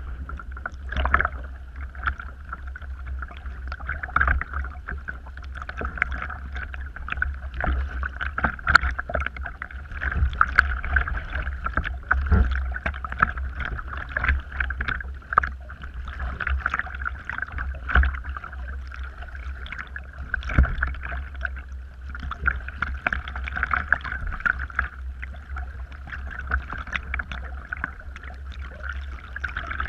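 Water splashing and slapping against the hull of a sit-on-top kayak as it is paddled with a double-bladed paddle. Short, irregular splashes sit over a steady low rumble.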